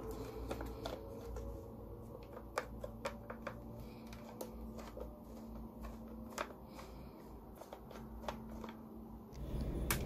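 Scattered small clicks and taps of plastic and a screwdriver as the dusty cyclone assembly of a Dyson V6 cordless vacuum is handled and taken apart, over a faint steady hum.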